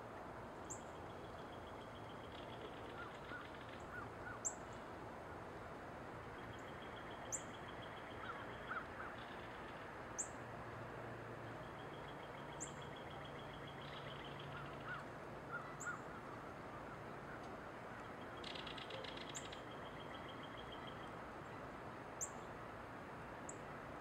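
Female belted kingfisher giving its dry rattling call in four short bouts of a second or two each. Sharp, high chip notes ring out every few seconds in between and are the loudest sounds.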